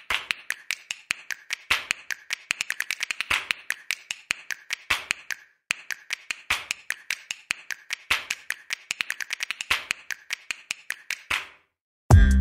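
Typing sound effect: rapid key clicks in two runs of about six seconds with a short break between them. Electronic music with a heavy bass comes in near the end.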